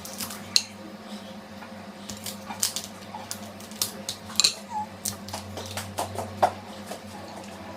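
Cutlery and food clicking and clinking irregularly against a plate while seafood is eaten, over a low steady hum.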